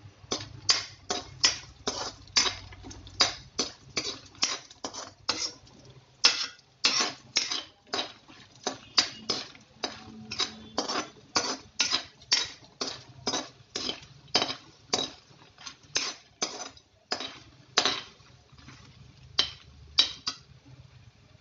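A spatula scraping and knocking against a metal kadhai as fox nuts (makhana) are stirred and roasted in a little oil, about two to three strokes a second, stopping shortly before the end.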